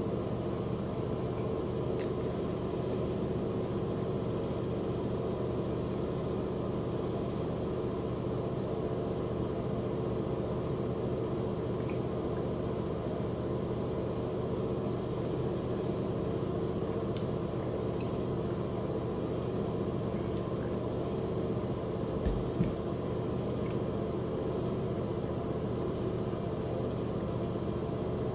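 Steady low hum with faint even tones, like an appliance or fan running in a small room. There are a few faint clicks, and a short thump comes about 22 seconds in.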